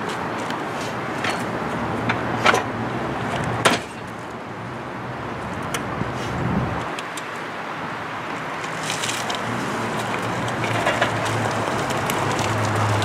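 Granite Industries Transformer electric hand truck being driven with a strapped load, its motor giving a low hum over the steady rolling noise of its tyres on gritty pavement. Two sharp clicks come a few seconds in.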